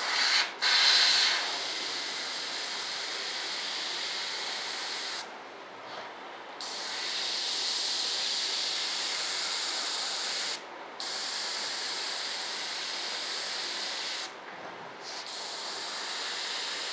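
Airbrush spraying black paint: a steady hiss of air and paint with a louder spurt about a second in, cutting off briefly three times, around five, ten and fourteen seconds in.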